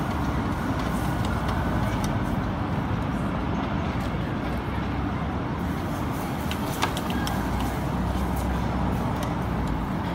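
Steady low rumble of road traffic, with a few light clicks scattered through it, one sharper about seven seconds in.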